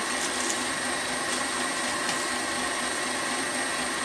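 KitchenAid Classic stand mixer running at a steady speed, its beater turning through dry, powdery bath bomb mix in a stainless steel bowl.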